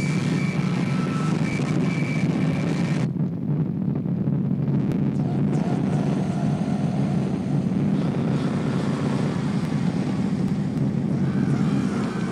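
Harsh noise: a dense wall of distorted electronic noise, heaviest low down. A thin high whistling tone runs through it until about three seconds in. There the upper end suddenly drops away, leaving the low rumble, and then slowly builds back.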